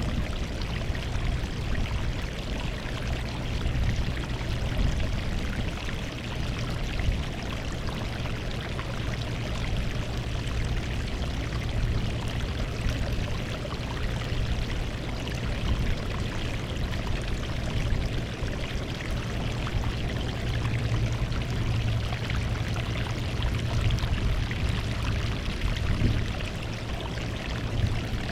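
Sea water washing over a rocky shore: a continuous churning and splashing of small waves, swelling and easing gently, over a steady low rumble.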